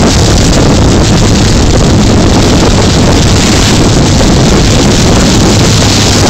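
Loud, steady noise of a Mekong slow boat under way: its engine running with water rushing and churning along the hull, and wind buffeting the microphone.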